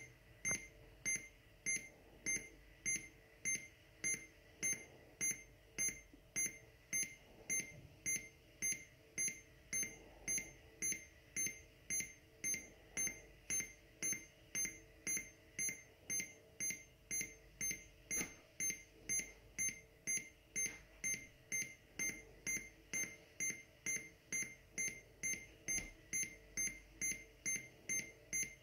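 Electronic beeper of a homemade airsoft bomb prop giving short, evenly spaced high-pitched beeps, about two a second: the armed prop's countdown timer ticking toward its "detonation".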